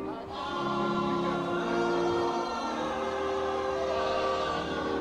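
Choir singing gospel music in several parts, holding long sustained notes that change every second or so.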